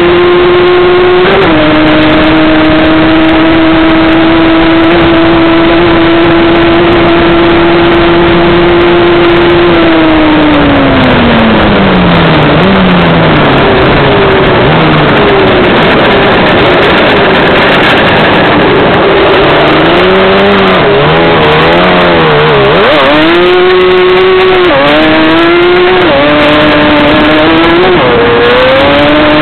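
Stock Yamaha Banshee ATV's two-stroke parallel-twin engine at full speed. It holds a steady high pitch for about ten seconds, then falls away as the quad slows, then climbs again in steps through the gears near the end.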